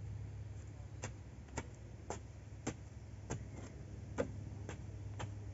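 Sharp knocks at an even pace of about two a second, over a low steady hum: a wooden pole tamping the soil around the foot of an upright wooden post to set it firm.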